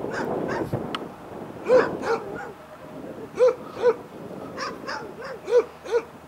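An animal calling in short, arched calls that come in pairs, three pairs over a few seconds, in the manner of barks or caws.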